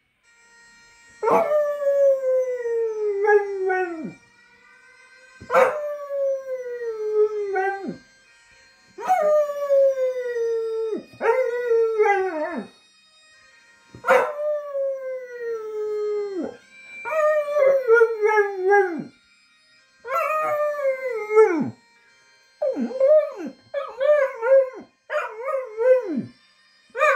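A dog howling along to bagpipe music played through a phone: a run of long howls, each sliding down in pitch over two to three seconds, turning into shorter, wavering howls near the end. The bagpipe music sounds faintly and steadily underneath.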